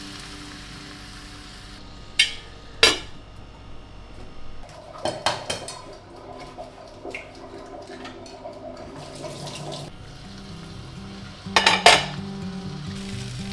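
Kitchen clatter of pots, pans and utensils: two sharp knocks a couple of seconds in, a quick cluster in the middle and a double knock near the end. A light hiss of egg frying in the pan is heard at the start and returns near the end.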